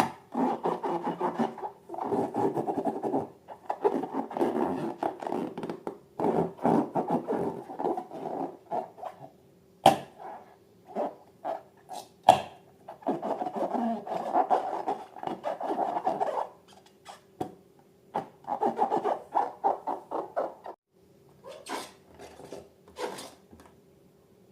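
Slime being worked by hand, rubbing and squishing in stretches of a second or more with short pauses between. Two sharp clicks stand out about ten and twelve seconds in.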